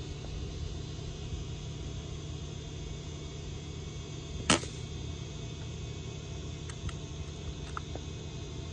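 A single shot from an Umarex Gauntlet .22 PCP air rifle: one sharp crack about halfway through. A few faint clicks follow near the end, over a steady low background hum.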